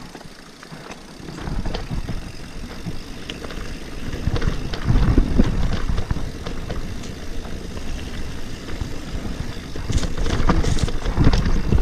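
Mountain bike descending a dirt forest trail: low rumble of tyres and wind with the bike rattling and knocking over bumps. Quieter for about the first second, louder from about four seconds in and again near the end.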